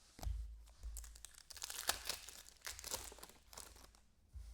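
Crinkling and rustling of a foil trading-card pack wrapper and cards being handled, irregular crackles that fade out near the end, with a soft thump just before it.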